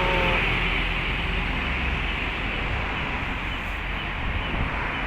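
Steady road noise of traffic, car engines and tyres on the road, with no single vehicle standing out.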